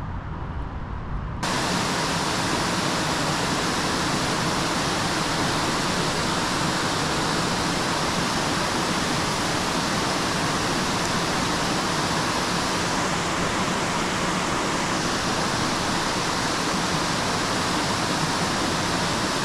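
Small waterfall cascading over rocks, a steady rushing of water that starts abruptly about a second and a half in, after a brief low rumble.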